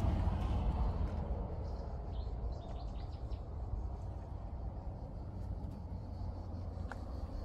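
Outdoor ambience: an unsteady low rumble on the microphone, with a few faint bird chirps a couple of seconds in and a light click near the end.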